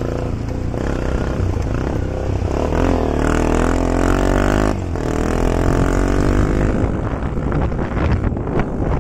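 Motorcycle engine running under way. Its note rises, cuts out briefly about halfway through, then picks up again.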